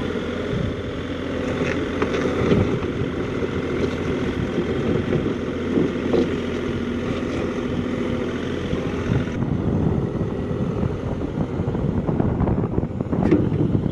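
Kubota U50-5 mini excavator's diesel engine running steadily while the operator swings the cab and works the boom, with a short click near the end.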